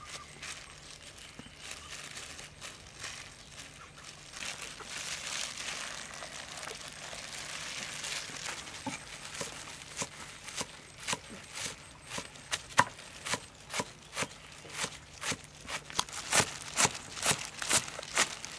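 Rustling as the vegetables are handled, then a cleaver chopping green onions on a wooden stump chopping block. The chops start scattered about halfway through and turn into a steady, louder rhythm of sharp knocks in the last few seconds.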